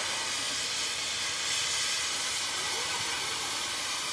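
Gas heating torch burning with a steady hiss, its flame played on the bent lip of a steel truck wheel rim to heat the metal for repair.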